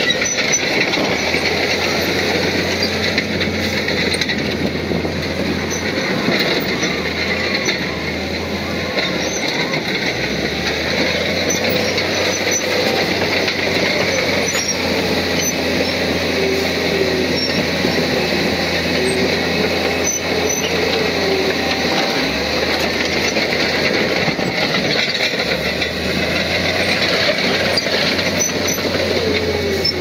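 Komatsu crawler bulldozer working: diesel engine running steadily under load while its steel tracks clank and squeal, with no break in the sound.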